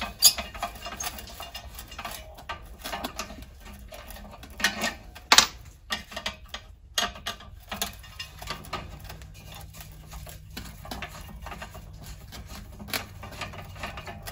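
Small metallic clicks, taps and scrapes of a screwdriver working the Phillips screws and handling a patio heater's dump switch on its sheet-metal bracket, with a few sharper clicks near the start and about five seconds in.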